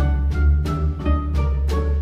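Background music with a steady beat, about three beats a second, over a strong bass line.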